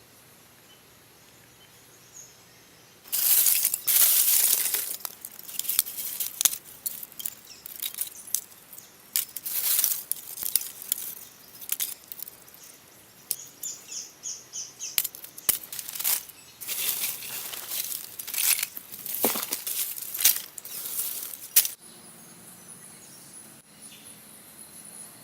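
Stone being worked by hand: a run of irregular scraping and rubbing strokes that starts about three seconds in and stops suddenly near the end.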